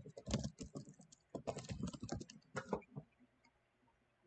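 Typing on a computer keyboard: a quick run of keystrokes that stops about three seconds in.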